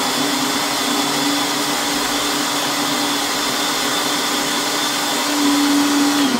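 Countertop blender running steadily at high speed, pureeing a thick, jammy cooked cranberry mixture; its motor hum holds one pitch, then falls in pitch and winds down as it is switched off at the end.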